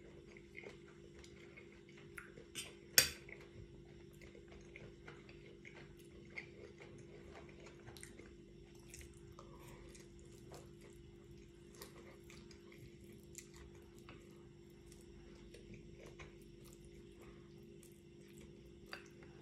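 Eating spaghetti from a plate: a fork tapping and clinking against the plate, with one sharp, louder clink about three seconds in, and soft chewing and slurping of noodles.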